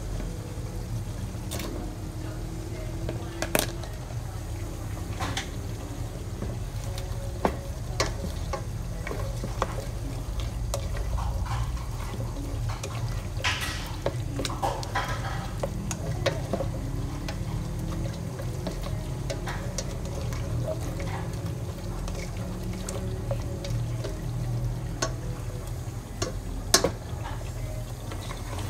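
A spatula stirring minced chicken and diced potatoes in a stainless steel pot, with occasional sharp clinks against the pot over a steady low hum.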